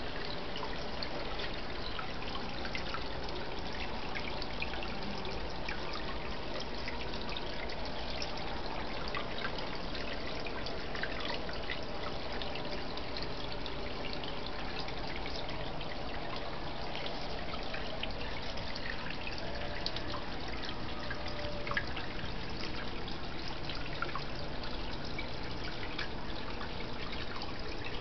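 Water trickling steadily into a small garden fish pond, with many small drips and splashes.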